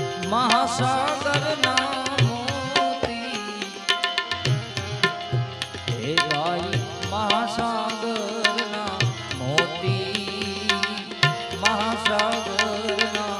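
Gujarati devotional bhajan music: a tabla keeps a steady beat under a bulbul tarang (keyed Indian banjo) playing ornamented melodic runs, with small hand cymbals ticking along. A singer's voice holds a phrase about a second in.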